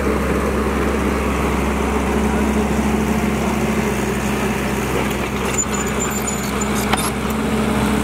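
Caterpillar E120B hydraulic excavator's diesel engine running steadily close by, with a single sharp click near the end.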